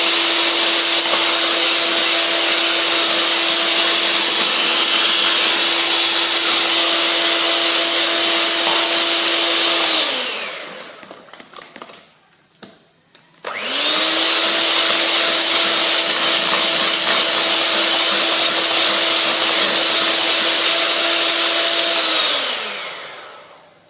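Electric hand mixer beating eggs and sugar, its motor running at a steady speed with a steady whine. It winds down to a stop about ten seconds in, starts again about three seconds later, and winds down to a stop again near the end.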